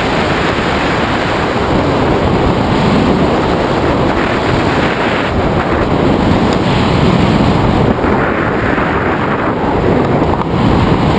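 Loud, steady rush of wind buffeting the microphone of a camera mounted on the frame of a tandem hang glider in flight.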